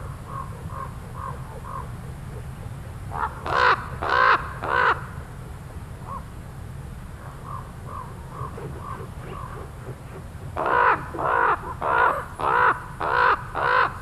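Common ravens calling: scattered faint short calls, four loud calls around three to five seconds in, and a quick run of about seven loud calls in the last few seconds, over a steady low hum.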